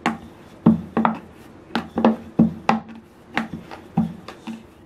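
Wooden rolling pin rolling out dough on a round wooden board, giving about a dozen sharp wooden knocks and clacks at an irregular pace of two or three a second.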